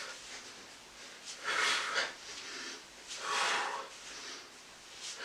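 A man breathing hard under exertion: forceful, hissing exhales, two strong ones about a second and a half apart in the middle, with quieter breathing between.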